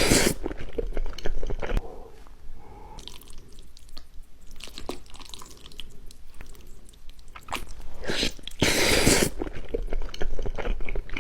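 Close-miked eating sounds: a person chewing and biting with wet mouth clicks and smacks, with louder bursts at the start and about nine seconds in.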